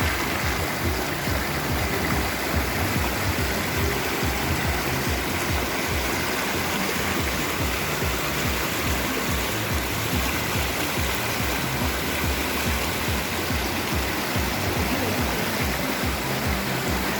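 Stream water rushing steadily, an even unbroken wash of noise.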